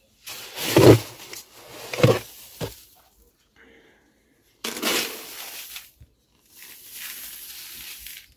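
A plastic scoop digging into a sack of dry ground grain feed, with a few crunching scrapes, then a stream of the feed poured from the scoop into a plastic bucket with a steady hiss for the last couple of seconds.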